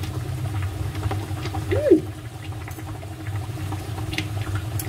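Knife and fork scraping and tapping lightly on a ceramic plate while cutting food, over a steady low hum. A short hummed 'mm', rising and falling in pitch, comes about two seconds in.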